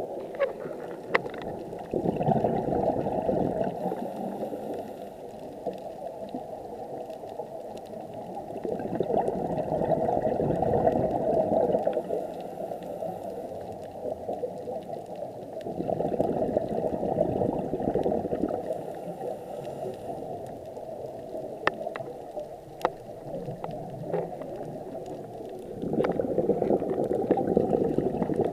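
Underwater breathing of a scuba diver through a regulator: bubbling exhalations come in bursts about every seven seconds, with a few sharp clicks between them.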